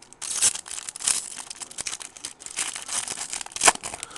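Foil trading-card pack wrapper crinkling and tearing as a pack of baseball cards is opened, with one sharper crack near the end.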